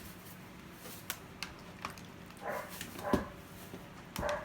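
A dog gives three short barks in the second half, with a few light clicks and knocks scattered through.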